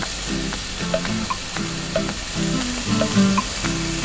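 Squid, shrimp and diced bell peppers sizzling in a frying pan, over background music with a repeating melody of short notes.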